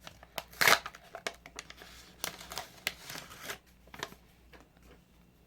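Hand-opening of a Pokémon card grab bag: rustling and crinkling of the wrapping in short irregular bursts, loudest about a second in, dying down over the last couple of seconds.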